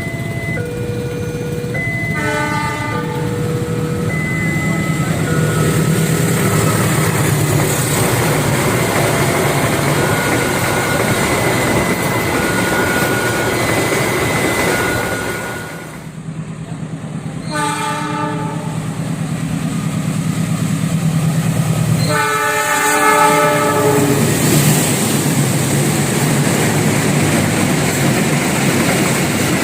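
Train locomotive horn sounding in three loud blasts, one early, one past the middle and one longer one a few seconds later, over the continuous rumble and clatter of a train running by on the rails.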